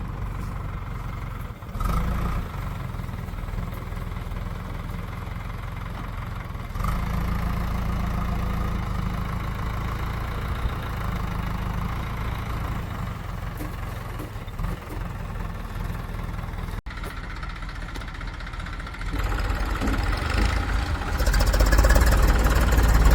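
Diesel engine of heavy earthmoving and farm machinery running steadily, its loudness stepping up and down and growing louder near the end.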